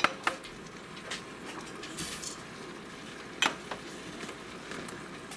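Dry orzo pasta being added to the Instant Pot's steel inner pot: a few light clicks and taps and a short rush about two seconds in, over a steady low hiss of the beef and seasoning mixture sizzling on the saute setting.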